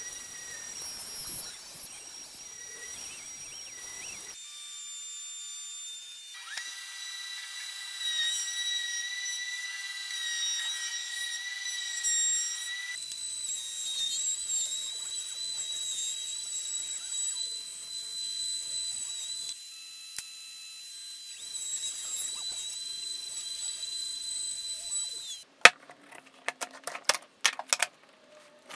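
Router table motor running at a high-pitched whine while a flush trim bit trims template-guided curved wood pieces, the whine jumping abruptly several times. About three seconds before the end it stops, and a quick run of sharp knocks and clatters follows as wood is handled on a bench.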